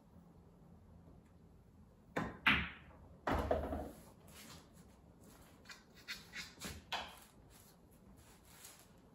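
A pool shot: the cue tip clicks against the cue ball about two seconds in, the cue ball clacks sharply into an Aramith Tournament object ball, and moments later a ball drops and rumbles into a pocket. A few lighter knocks of balls follow about three seconds later.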